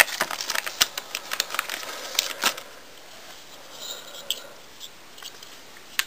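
A quick run of light plastic clicks and knocks from a desktop RAM stick being handled and set into a motherboard's memory slots, dying down after about two and a half seconds to a few faint ticks.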